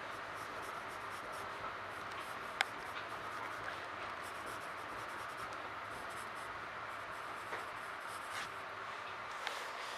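Pencil strokes scratching on sketchbook paper, over the steady hiss and hum inside a Metra commuter train car, with one sharp click about two and a half seconds in.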